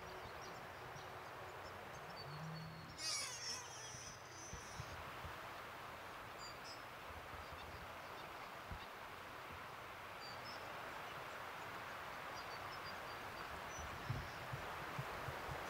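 Steady rush of creek rapids. A brief animal call comes about three seconds in, faint bird chirps are scattered through, and a few soft low thumps come near the end.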